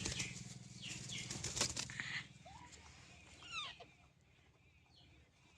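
A parrot flapping its wings with a burst of rustling for about two seconds, then a few short chirping calls.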